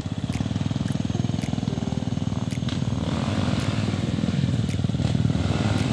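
Trail motorcycle engine running at a steady pace, its rapid firing pulses even throughout, with a few sharp clicks over it.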